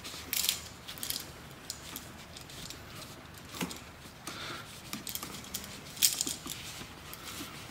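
Gloved hands handling stiff copper ground wires and a push-in wire connector: scattered small clicks and clinks as the wires are pushed into the connector. The sharpest clicks come near the start and about six seconds in.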